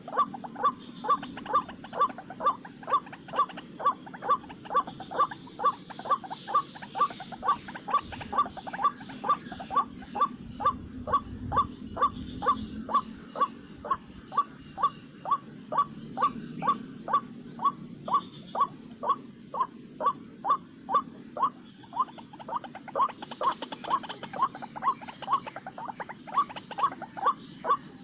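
White-breasted waterhen calls, a short sharp 'ruak' note repeated about twice a second in a steady, unbroken rhythm.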